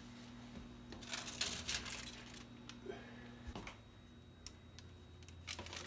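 Faint rustle and light clatter of a parchment-lined cookie sheet being slid off a metal oven rack, over a steady low oven hum that stops about three and a half seconds in. Scattered light clicks and knocks follow, with a few louder ones near the end.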